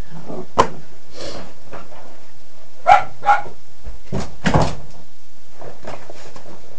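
A dog barking several times in short, separate barks spread over a few seconds.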